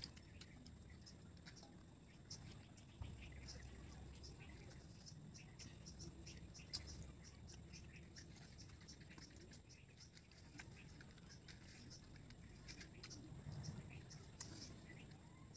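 Quiet: faint scattered clicks and smacks of chewing while eating rice by hand, over a steady high insect drone.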